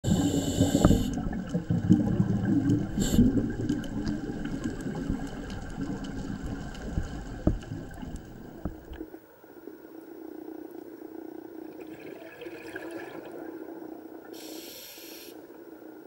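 Scuba diver breathing through a regulator underwater: an inhale hiss at the start, then a long burst of exhaled bubbles that stops about nine seconds in. After that a low steady hum remains, and a second short inhale hiss comes near the end.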